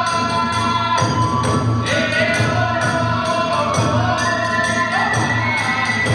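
Kagura hayashi music: small hand cymbals clash in a steady fast beat under drums and a held, sliding melody line.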